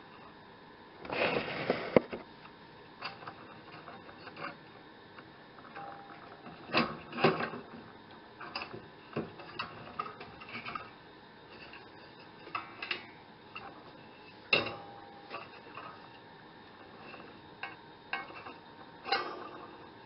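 Irregular light clicks and taps of a thin steel band saw blade being handled and pressed into place against a clamped steel jig, with a longer scraping rustle about a second in.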